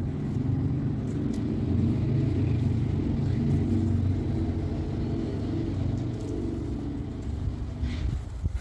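Low engine rumble of a motor vehicle, swelling over the first few seconds and then easing off.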